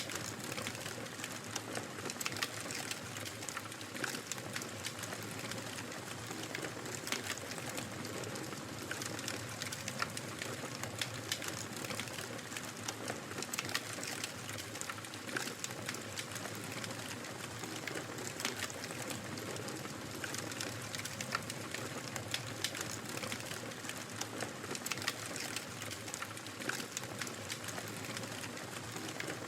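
Wood fire crackling: a steady hiss with frequent small pops and snaps scattered throughout.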